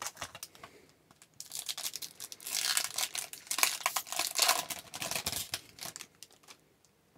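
A hockey card pack wrapper being torn open and crinkled: a few seconds of crackling rips and rustles.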